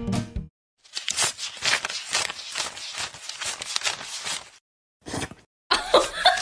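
Paper banknotes being flicked and counted by hand: a quick run of crisp rustles and snaps for about four seconds. Near the end a run of short, high-pitched sounds starts, repeating a few times a second.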